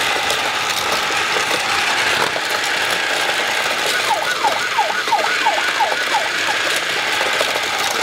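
Plarail DX Fumikiri Station toy playset running: its small motors and plastic gears whir steadily as the motorized road carries Tomica cars around. About halfway through, the toy's electronic sound effects play a quick string of about eight short falling tones.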